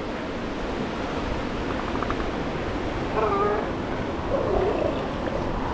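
Northern elephant seal females and juveniles calling from a crowded beach over a steady wash of surf: a couple of wavering, moaning calls about three and four and a half seconds in.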